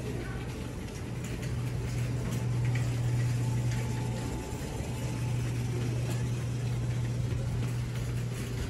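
Steady low hum of supermarket refrigeration and ventilation, with faint scattered clicks and rattles.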